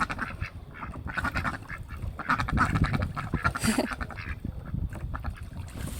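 Several domestic ducks quacking repeatedly as they play in a pond.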